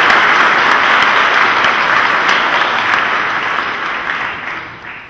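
A congregation applauding, a dense steady clapping that fades away over the last second.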